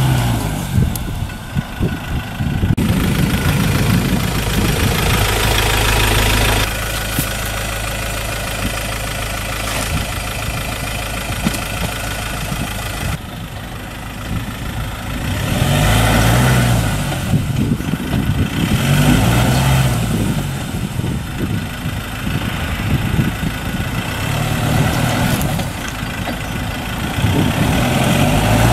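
Ford Ranger pickup's engine running in a loaded idle, revving up and dropping back several times as it tries to climb out of soft sand onto plastic sand boards. The sound changes abruptly twice, at edits.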